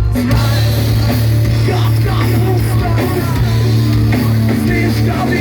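Rock band playing a loud, heavy instrumental passage between vocal lines, with a sustained low bass note under distorted guitars.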